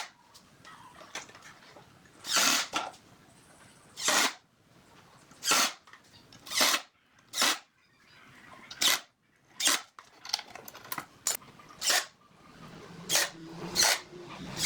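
Repeated short rasping strokes, about one a second, of a hand tool working wood.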